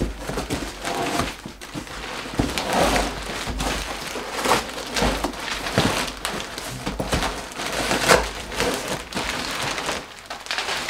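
Cardboard box being torn open by hand: irregular ripping of cardboard and packing tape, mixed with crinkling of clear plastic wrapping as the contents are pulled out.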